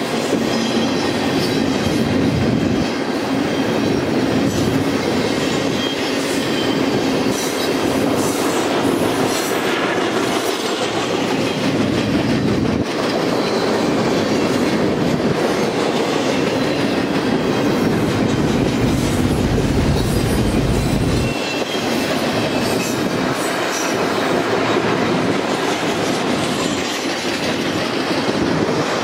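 Double-stack intermodal container cars of a freight train rolling past, a steady rumble with the rhythmic clickety-clack of wheels over the rail joints.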